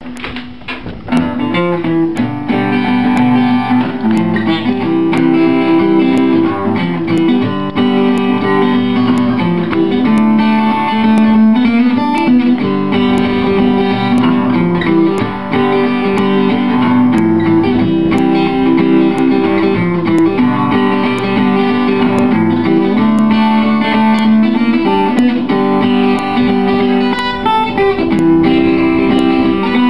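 Acoustic guitar playing a bluegrass boogie.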